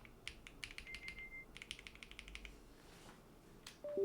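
Mechanical keyboard keys pressed in quick runs of clicks while checking which keys register, with one brief high beep about a second in.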